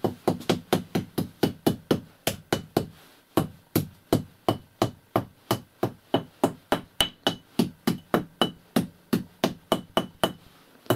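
Small hammer tapping rapidly and evenly on the plastered brick wall of a stove, about four knocks a second with a brief break about three seconds in: sounding out the masonry to find the hollow flue channel inside.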